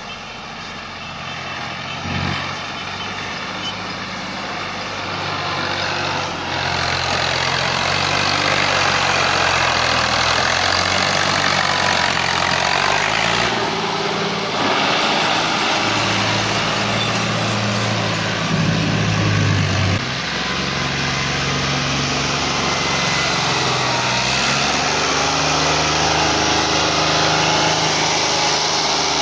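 Fiat 480 tractor's three-cylinder diesel engine running while towing a loaded trolley, growing louder as it comes closer. The engine speed shifts up and down as it manoeuvres, with a brief louder rev about two-thirds of the way in.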